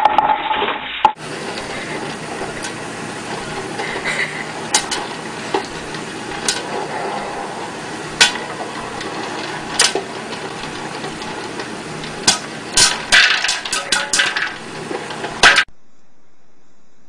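Electric stir-type popcorn popper popping its kernels under a clear dome: sharp pops over a steady sizzle, the pops coming thick and fast after about twelve seconds. A brief loud clatter comes in the first second.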